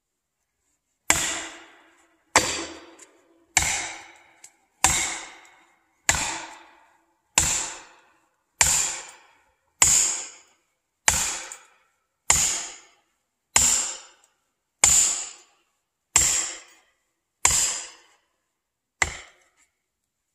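A faller driving a felling wedge into the back cut of a standing tree with repeated striking blows, about one every 1.25 s. There are fifteen sharp, evenly paced strikes, each ringing briefly. The tree is being wedged over to fall.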